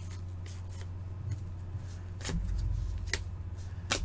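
Hockey trading cards being flipped through in gloved hands: a few scattered light clicks and snaps of card edges over a steady low hum.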